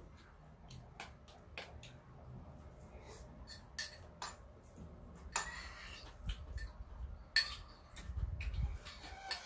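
Scattered light clicks and clinks of a metal spoon and chopsticks against bowls and a pan during a meal, coming more often and louder in the second half, with a low rumble underneath near the end.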